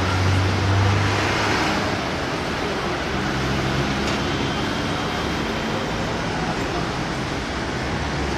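Steady city street traffic noise from passing cars, with a low engine hum that fades about a second in.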